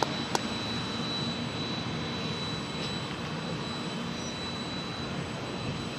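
Union Pacific passenger cars rolling away along the track: a steady rumble and rush of wheels on rail. One sharp click comes about a third of a second in.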